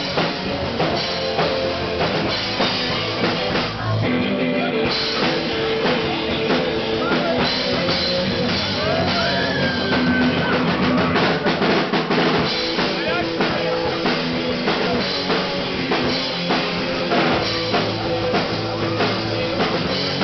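Live rock and roll band playing: electric guitars over a driving drum kit with bass drum, amplified in a small room.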